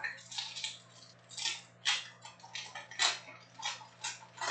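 Foil wrapper of a 2006 Panini World Cup trading card pack crinkling and tearing as it is pulled open by hand, in a run of short, uneven crackles.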